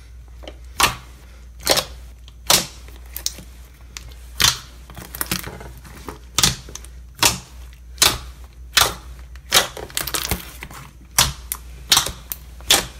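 Fingers pressing and folding a thick, glossy, creamy slime with foam beads, making sharp air-bubble pops a bit more than once a second.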